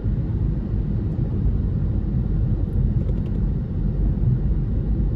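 Steady low rumble of a car driving at cruising speed, heard from inside the cabin: engine and tyre noise on the road.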